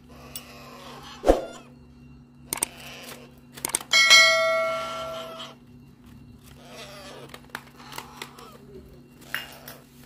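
A struck metal object rings clearly about four seconds in, fading over about a second and a half. There is a sharp thump just after one second, and scattered clicks and handling noises.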